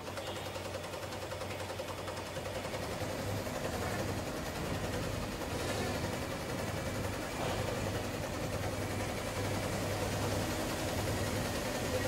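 Automated industrial pattern-sewing machine stitching thick padded material, its needle mechanism running at a fast, steady rate.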